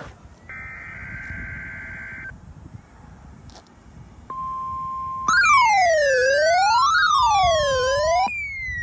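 NOAA Weather Radio weekly alarm test on weather alert radios. First comes a shrill two-tone data burst of about two seconds. About four seconds in, a steady warning alarm tone starts, and a second later it gives way to loud siren alarms wailing up and down in pitch, with a falling whistle that drops and then starts again near the end.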